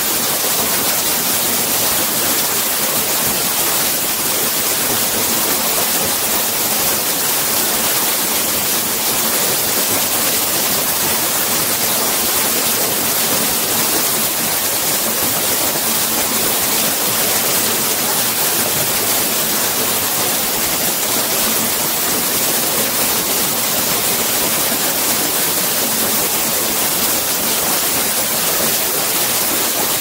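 Steady, unbroken rush of a tall waterfall pouring into its pool, an even wash of water noise with no separate splashes or breaks.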